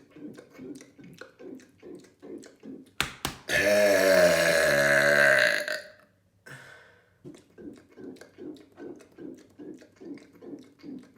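One long, loud burp of about two seconds, starting about three and a half seconds in, low-pitched and wavering, sinking slightly in pitch. Before and after it come runs of short, soft rhythmic sounds, about three a second, with two sharp clicks just before the burp.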